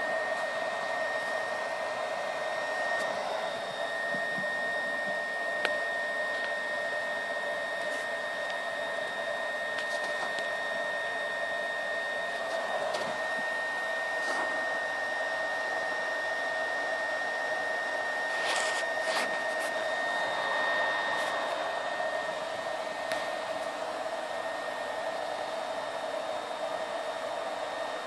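BioLite CampStove's fan running steadily, blowing air into the fire: a whirr of rushing air with a high, steady whine on top. A few faint clicks sound through it.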